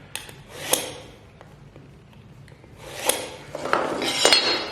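A blade lightly scoring a vinyl floor board: a short scraping stroke just after the start, then a longer rasping stroke from about three seconds in.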